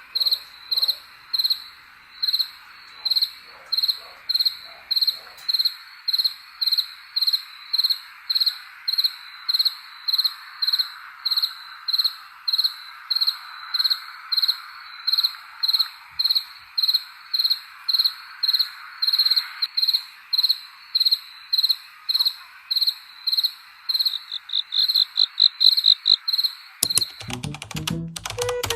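A cricket chirping in a steady, high-pitched rhythm of about two chirps a second over a faint chorus of other insects, the chirps quickening slightly near the end. Music comes in near the end.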